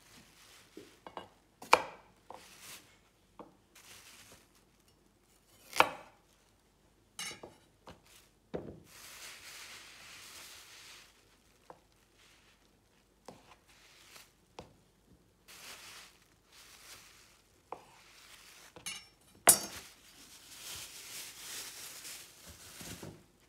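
A sharp cook's knife chopping and slicing through a carrot and a sausage on a wooden butcher-block board. The blade strikes the board in a few sharp knocks, the loudest about two seconds in and again near the end, with softer stretches of noise between them.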